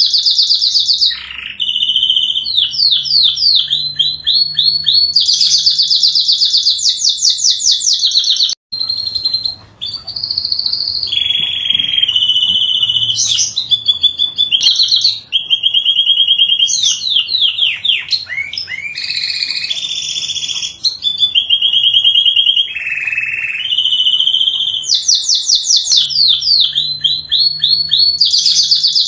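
Domestic canary singing a long, continuous song of rapid trills and rolling repeated notes, high-pitched, with one brief break about a third of the way through.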